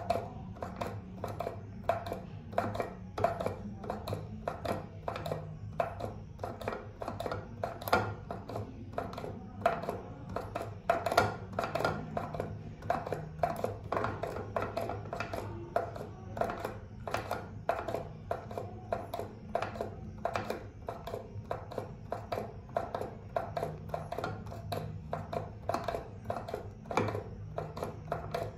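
Plastic pump of an empty liquid-soap dispenser clicking as it is pressed over and over, about two strokes a second, pumping air with no soap coming out. A steady low hum runs underneath.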